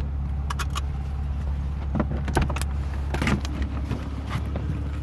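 A 2004 Mercedes-Benz C320's V6 engine idling steadily, with a few sharp clicks and clunks as a car door is unlatched and swung open.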